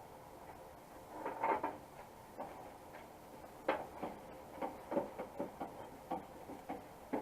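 Irregular light clicks and taps of small parts being handled inside a pickup truck door during reassembly, with a few sharper ticks near the middle and the end.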